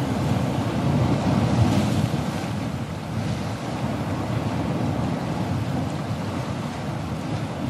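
Water from the open spillway gates of Bonneville Dam pouring into the Columbia River: a steady, loud rushing, with wind buffeting the microphone.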